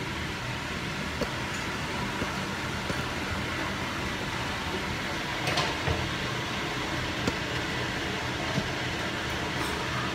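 Steady fan noise from a kitchen range hood running over the stove, with a few faint clicks and knocks.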